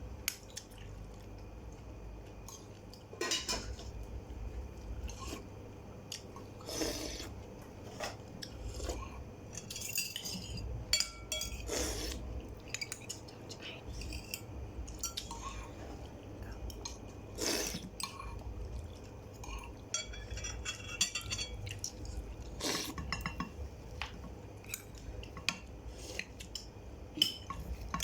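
Cutlery clinking and scraping against dishes in scattered, irregular knocks over a low background hum.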